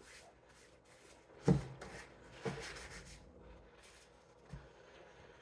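Quiet eating sounds: chewing and handling of fast food, with soft knocks about one and a half seconds in, again a second later, and near the end.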